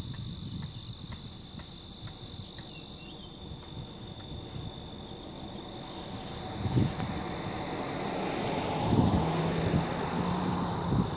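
Wind buffeting the microphone under a steady high-pitched insect drone; from about seven seconds in, a vehicle on the highway approaches and grows steadily louder.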